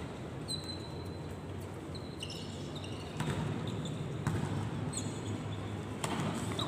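Volleyball rally in a reverberant sports hall: the ball is struck by hands about three times, the hardest hit near the end as a spike, with short squeaks of court shoes on the floor in between.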